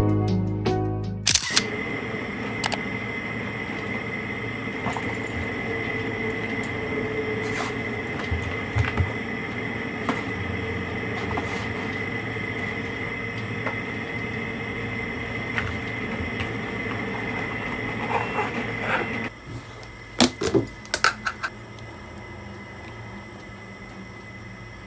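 Piano music stops about a second in, giving way to steady room noise with a thin, constant high tone and occasional light clicks. Near the end the background drops quieter, and a few sharp clinks and taps follow as a spoon and a plastic yogurt tub are handled.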